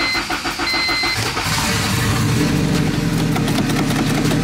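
K-series four-cylinder engine in a swapped Honda Civic being cranked over by the starter, catching about a second in and settling into a steady idle.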